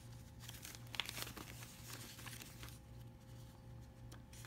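Paper banknotes rustling and flicking softly as a stack of $50 bills is counted by hand, a few light flicks with the sharpest about a second in.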